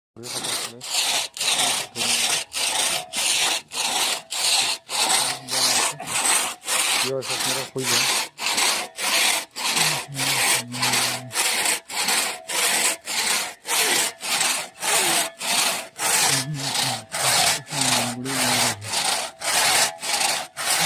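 Hand saw cutting through agarwood, one loud, even push-pull stroke after another at about two strokes a second.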